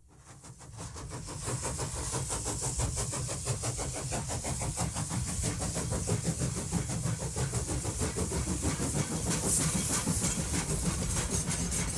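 A train running along the track with a steady, fast, even clicking rhythm over a low rumble and a hiss, fading in over the first second or two.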